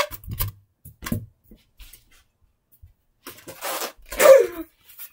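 Scattered knocks and rustles, then a brief hiss and a loud breathy burst with a short falling pitch, a little past four seconds in.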